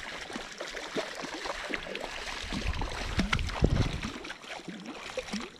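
Hooked trout thrashing and splashing at the water's surface while being played, irregular splashes that grow loudest about halfway through.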